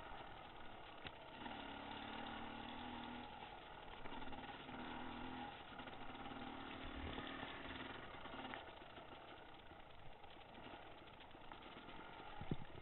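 Dirt bike engine running faintly under way on a rough dirt trail. Its note holds steady for stretches of a second or two with gaps between, over a constant rough rumble from the ride, and there are a few sharp knocks near the end.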